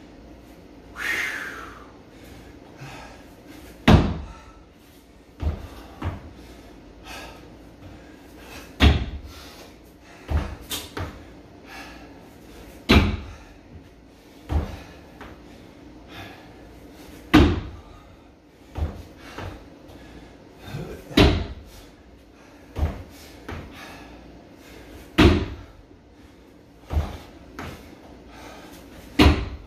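Box jumps onto a homemade wooden plyometric box: a loud thud of the landing about every four seconds, each followed about a second and a half later by a lighter thud of stepping back down. One heavy breath about a second in.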